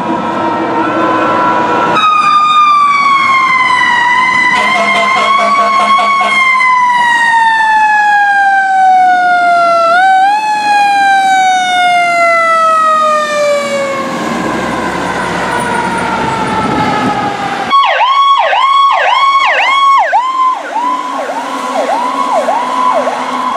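Fire truck sirens going by. First, a long siren tone falls slowly in pitch, is pushed back up briefly about halfway, and keeps falling. After a sudden change late on, a siren sweeps quickly and repeatedly in a fast yelp.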